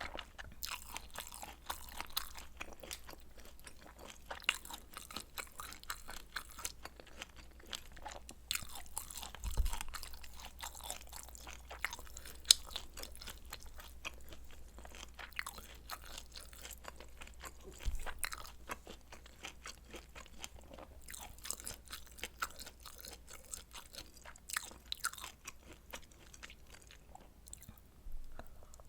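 A person chewing and biting food close to the microphone: a steady run of wet mouth clicks and small crunches, with a few louder bites along the way. The meal is spicy stir-fried noodles and kielbasa sausage.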